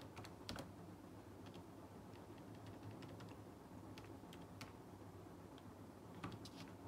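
Near silence with a low steady hum, broken by a handful of faint, scattered clicks and taps.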